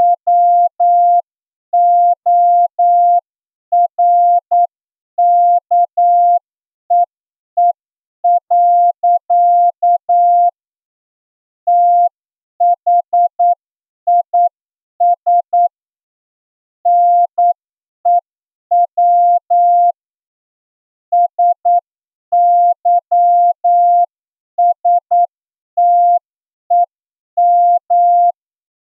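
Morse code sent as a single steady beep of about 700 Hz, keyed on and off in dots and dashes, with longer pauses between words: a receiving-test practice passage at about 8 words per minute.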